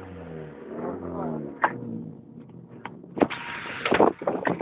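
Moskvitch car's engine revving up and down while driving on a snowy ice track. From about three seconds in, heavy buffeting and thumps hit the microphone, with snow spraying around the front wheel.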